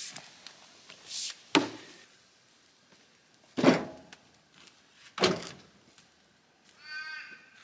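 Heavy thuds of split jarrah firewood pieces dropped into a ute's tray, several loud knocks a second or two apart.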